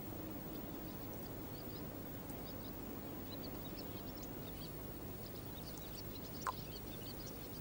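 Outdoor ambience of small birds chirping over a steady low background noise. A single sharp click comes about six and a half seconds in.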